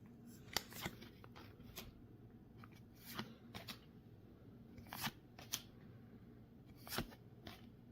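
Trading cards being handled and flipped through, giving faint, sharp card-on-card clicks and snaps at irregular intervals.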